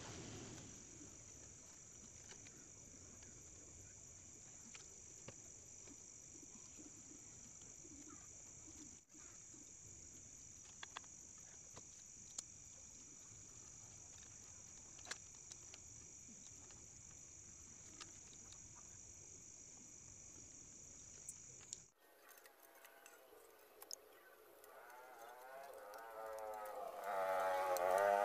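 Steady high-pitched chirring of crickets, with a few faint clicks scattered through it. About two thirds of the way in the sound changes abruptly, and a wavering pitched sound swells up, loudest near the end.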